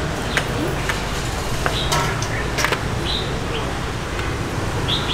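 Steady street background noise with scattered light clinks and taps of utensils on metal, and a few short high-pitched chirps.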